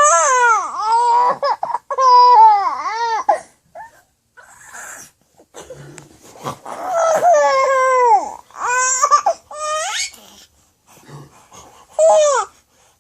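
A baby squealing and laughing while being tickled: high-pitched calls that arch up and down in pitch, coming in bursts with short pauses between.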